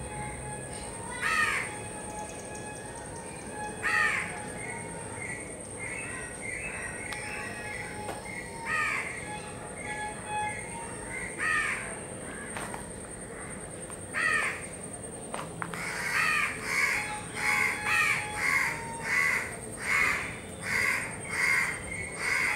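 Crow cawing: single caws every two to three seconds, then a quick run of caws, close to two a second, in the last several seconds. A steady high-pitched whine runs underneath.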